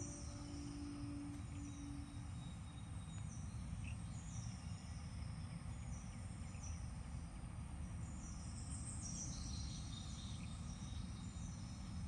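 Outdoor ambience: a steady low rumble under a small bird's short, high, falling chirps, repeated every second or so and most frequent near the end.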